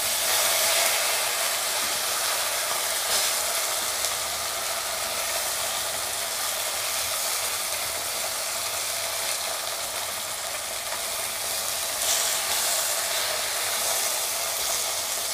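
Marinated whole pearl spot fish (karimeen) sizzling steadily in hot oil in a nonstick wok while they are shallow-fried. A wooden spatula and a steel spoon scrape and knock against the pan a few times as the fish are turned over to brown the other side.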